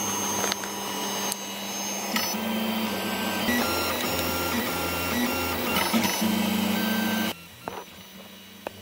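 Tevo Tornado 3D printer printing, its stepper motors whining in tones that shift in pitch as the print head changes moves, over a steady rush of fan noise. About seven seconds in the sound drops much quieter while the motors keep running, with a couple of light clicks.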